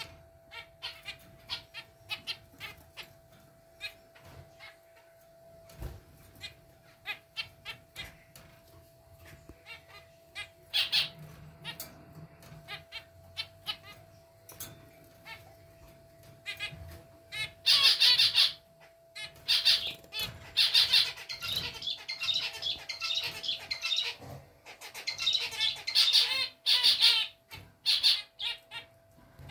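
Zebra finches calling: many short, repeated chirps, scattered at first and then coming thick and loud in the second half. A faint steady hum runs underneath.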